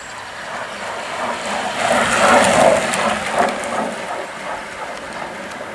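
Time-trial bicycle with a rear disc wheel passing close at speed: a rushing whir of tyres and disc wheel that swells to a peak about two to three seconds in, then fades as it goes by.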